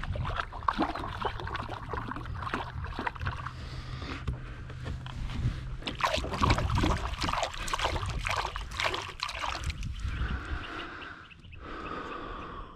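Water splashing and sloshing against a kayak hull, with many small knocks and clicks. A low steady hum runs under the first half.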